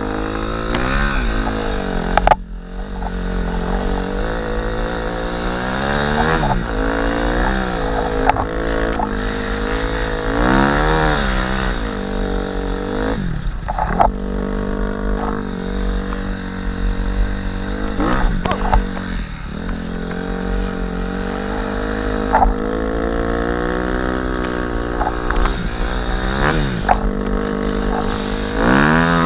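Dirt-bike engine of a snow bike being ridden, revving up and dropping back over and over as the throttle is worked, with a few sharp knocks along the way.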